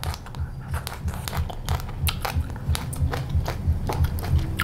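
Close-miked eating sounds: a mouthful of rice and boiled water spinach chewed with many sharp, irregular wet clicks and smacks of the mouth.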